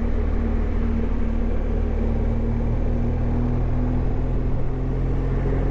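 Motorcycle engine running steadily while riding in traffic, with wind and road noise; the engine's note shifts about halfway through.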